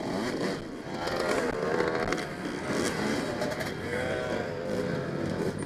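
Dirt bike engines revving, the pitch rising and falling repeatedly.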